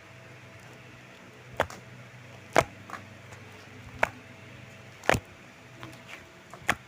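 Clay slime being pressed and squeezed, giving sharp, short popping clicks at irregular intervals, about six in all.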